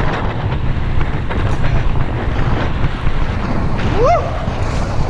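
Wind buffeting the action camera's microphone as a RadRover fat-tire e-bike coasts fast down a bumpy dirt trail without pedal assist, with scattered knocks and rattles from the bike over rough ground. A short rising whoop-like tone sounds about four seconds in.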